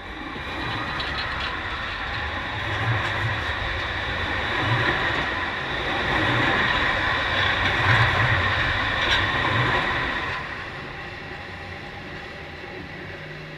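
Light-rail tram rolling over the track directly overhead: wheel rumble with a steady high whine. It grows louder to a peak about eight seconds in, then fades as the tram moves away.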